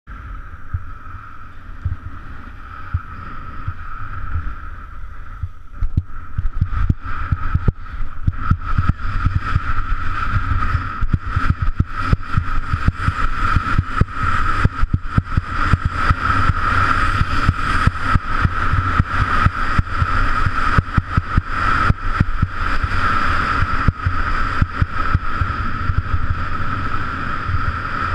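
Skiing downhill: wind buffeting the action camera's microphone, with the skis scraping and chattering over groomed snow. It gets louder and rougher about six seconds in as speed builds.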